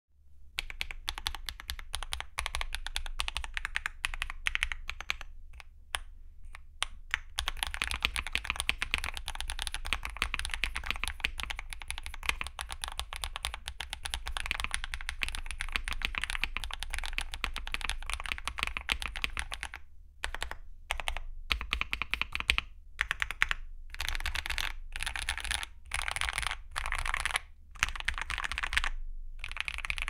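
Typing on a GMK67 mechanical keyboard with stock HMX x Akko Mirror linear switches, a PC plate, tape mod, case foam and Cherry-profile PBT keycaps. Steady, dense key clacks for about twenty seconds, then short bursts of typing broken by brief pauses.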